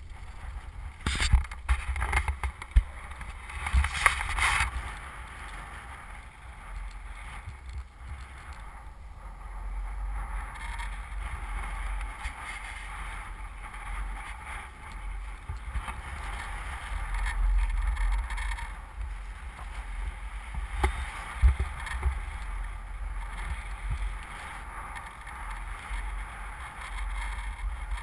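Wind rumbling and buffeting on a camera microphone on a moving chairlift, swelling and easing throughout. In the first five seconds there are several sharp knocks and scrapes close to the microphone.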